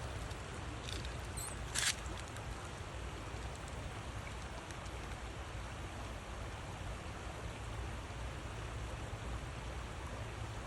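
Steady outdoor background noise with uneven low rumble, like wind on a handheld microphone during a walk, and one short sharp crackle about two seconds in.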